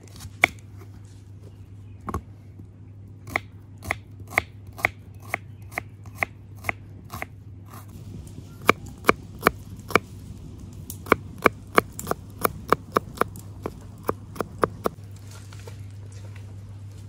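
Kitchen knife chopping garlic on a wooden cutting board: sharp knocks about two to three a second, in two runs with a short pause between them, stopping a couple of seconds before the end.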